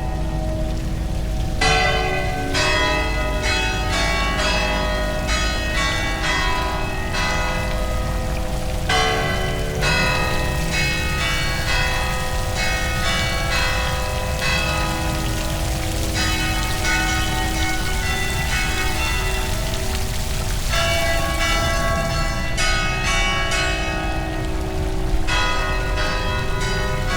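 Church bells of several pitches struck one after another in quick succession, each ringing on into the next, with a steady low rumble underneath.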